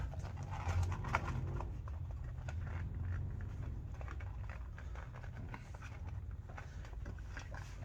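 Hands working a rubber bicycle inner tube into the tire around the rim: faint rubbing with scattered light clicks over a low steady hum.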